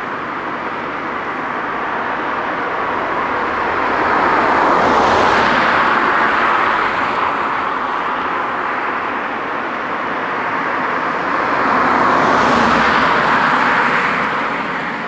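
Two cars driving past one after the other on an asphalt road, their tyre and engine noise swelling as each goes by, about five seconds in and again near the end.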